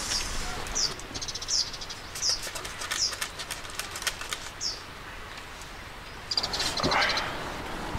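Serrated bread knife sawing through a crusty loaf on a cutting board: a short crisp rasp with each stroke, about one every three-quarters of a second, with a louder scraping spell near the end.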